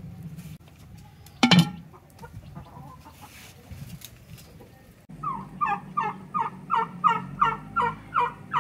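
A single sharp knock about one and a half seconds in. From about five seconds in, a farmyard fowl calls in a rapid run of about ten short, falling notes, roughly three a second.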